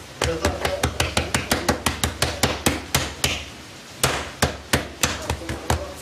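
Hands slapping and patting pizza dough against a stone counter: a quick run of sharp slaps, about five a second, then a brief pause about three seconds in and a few slower slaps.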